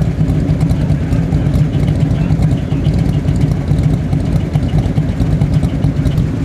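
An engine running steadily at idle, a low, even rumble.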